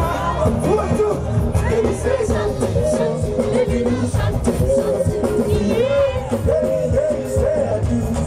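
Live pop music played loud through a concert PA: a man sings into a handheld microphone over a steady beat.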